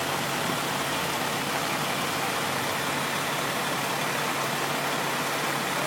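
Steady hiss of rain with a vehicle engine idling underneath as a low, even hum.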